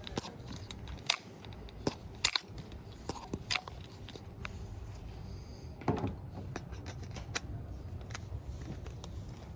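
Irregular small clicks and taps of objects being handled, the sharpest about a second in, around two seconds in and near six seconds, over a low steady hum.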